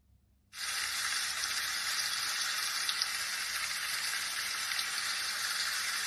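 Rain sound effect: a steady hiss of falling rain with faint patters, starting about half a second in.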